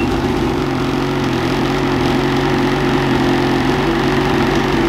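A 2022 Ski-Doo Freeride 850 on its stock exhaust, its Rotax 850 E-TEC two-stroke twin idling steadily just after starting.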